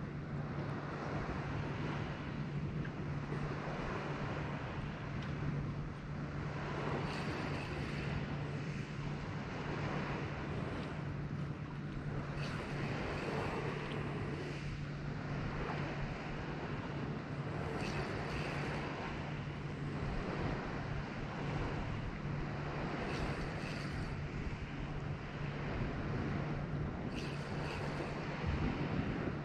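Sea surf washing against the shore, with wind on the microphone and a steady low hum underneath.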